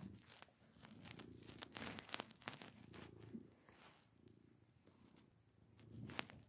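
Long-haired tabby cat purring softly while being stroked, the low purr swelling and fading with each breath. Light rustling and clicks come from the hand moving over its fur.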